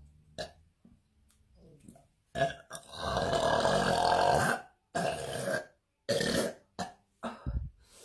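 A woman burping loudly: one long burp of about two seconds beginning about two and a half seconds in, then two shorter burps.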